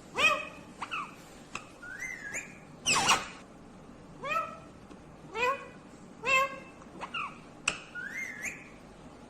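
Indian ringneck parrot (rose-ringed parakeet) calling: a run of short squawks about once a second, each arching up and down in pitch, with a louder harsh squawk about three seconds in and a couple of rising whistles.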